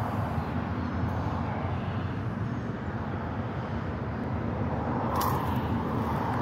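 Steady low rumbling outdoor background noise, with a brief rustle or scrape about five seconds in.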